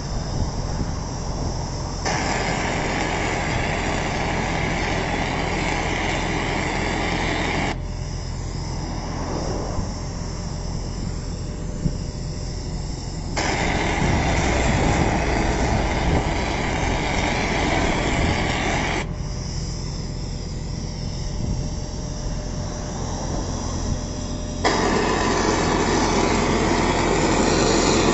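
Hofmann road-marking machine's engine running steadily, with a loud hiss from its spray switching on and off about every five to six seconds, in the rhythm of painting dashed lane lines.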